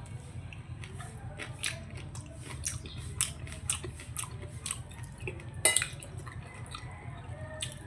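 Close-miked chewing of cheesy shrimp and glutinous-rice risotto: wet mouth clicks and smacks coming irregularly, several a second. A louder sharp click sounds a little past the middle, over a steady low hum.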